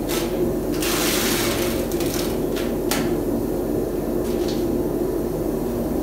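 Masking tape and stencil being peeled off a painted fridge body, with a few short tearing rips and rustles over a steady low hum.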